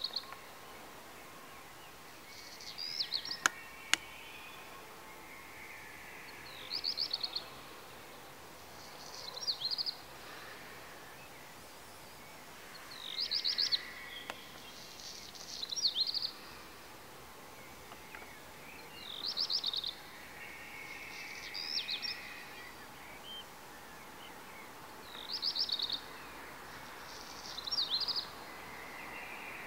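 A songbird singing short, high phrases of rapid notes, one about every two to three seconds, over a faint steady background hum of the city. Two sharp clicks come about three and a half seconds in.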